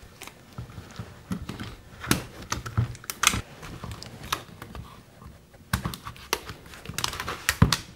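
Rubber bands being stretched and snapped around two-part plaster slip-casting molds, with the molds handled on a table: scattered sharp snaps and taps.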